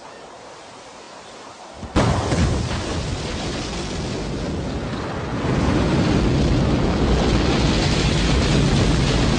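Rocket engines igniting on the launch pad: a faint hiss, then a sudden loud blast about two seconds in, followed by a steady deep rumble of engine thrust that grows louder about five seconds in.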